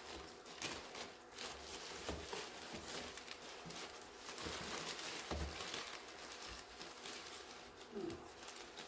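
Faint rustling and scattered light clicks and taps of gloved hands handling things at a workbench, with a soft low thump about five seconds in.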